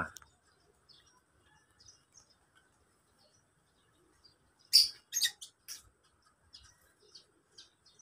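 Lovebirds in an aviary giving short, sharp chirps: scattered faint calls, with a louder run of three calls about five seconds in.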